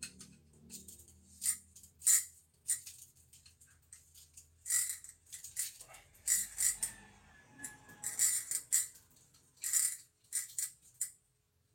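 Fishing tackle being handled while a spinning rod is set up: short, irregular light clicks and rattles from the rod, its spinning reel and a hanging lure, with quiet gaps between them.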